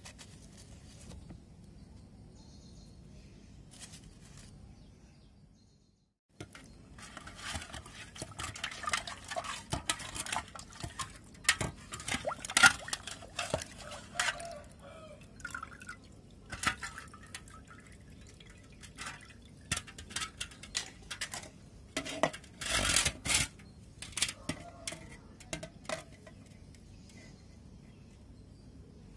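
Water splashing and sloshing as a fish is washed by hand in a steel pot, with irregular clicks and knocks against the metal; the loudest splashes come around the middle and again a few seconds before the end. The first few seconds hold only faint background.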